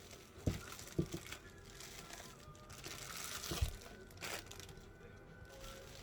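Packaging crinkling and rustling as a boxed clock radio is unpacked, with three short knocks of the pieces being handled and set down.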